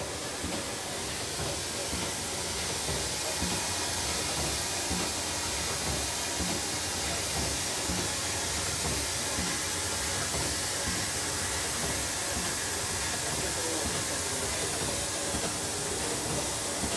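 KartridgPak chub packaging machine running, pulling film and forming and clipping chub packages: a steady, even machine noise with a strong hiss.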